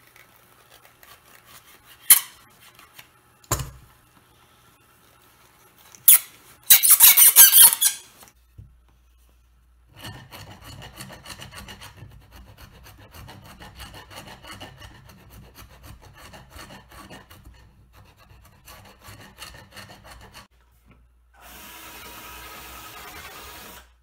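Old glue being scraped out of a wooden furniture joint with a chisel: a few sharp knocks and clicks, one loud scrape, then a long run of quick scraping strokes.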